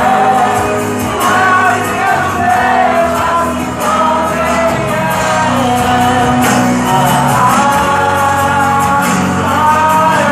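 Live gospel song through a loudspeaker: a singer's voice drawing out long, gliding notes over backing music.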